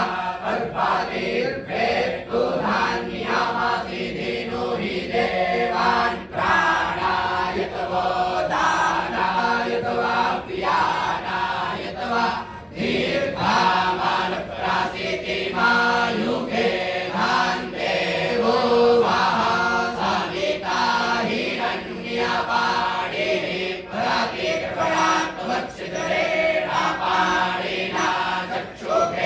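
A group of young Vedic students chanting Vedic verses in unison, in steady recitation phrases.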